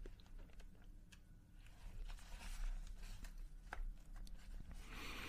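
Pages of a paperback book being flipped and turned by hand: faint soft paper rustling with small crisp flicks, picked up close.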